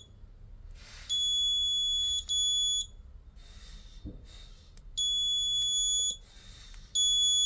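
Electronic remote-key signal tester beeping each time a button on the repaired Ford Transit key fob's circuit board transmits: four steady high-pitched beeps, the second one short, the others about a second long. The beeps show the remote is sending again after its battery was replaced.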